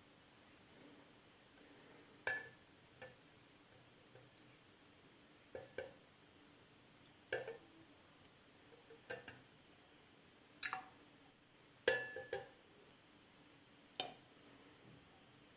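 Glassware or dishes being handled: about a dozen scattered light clinks and taps, a couple of them ringing briefly with a clear glassy tone.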